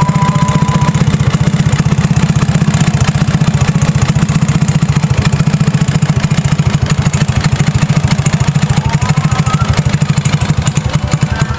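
Vespa Exclusive's ported two-stroke single-cylinder engine, fed by a PWK28 carburettor and breathing through a gutted stock exhaust, running steadily at idle with a fast, even popping beat.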